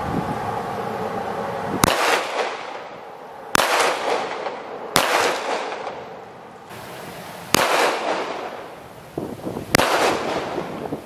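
Five gunshots from a .45 handgun, fired one at a time, one and a half to two and a half seconds apart, each crack trailing off in an echo.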